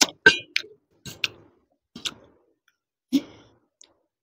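Close-miked eating of instant noodles: a string of short, sharp wet mouth clicks and smacks from chewing, irregularly spaced at roughly two a second.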